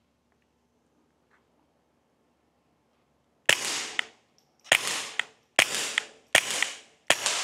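Five suppressed .22 LR pistol shots from a SIG P322 fitted with a Dead Air Mask HD suppressor, firing CCI subsonic rounds, starting about three and a half seconds in and coming roughly one a second. Each is a sharp crack with a short decaying tail and a second, smaller click about half a second later. They are quiet enough that the meter peaks at about 79 dB, which is called completely ear safe.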